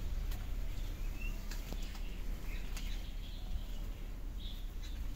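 Birds chirping now and then over a steady low rumble, with a few faint clicks.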